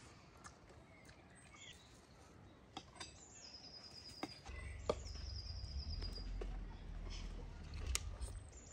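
Forks and knives clinking against china plates, a handful of sharp taps, the loudest about five and eight seconds in. A small bird gives two short high trills in the background, and a low rumble runs through the second half.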